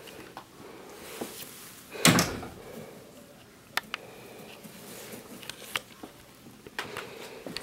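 A few knocks and clicks in a small room, the loudest a sharp thud about two seconds in, with smaller clicks later on.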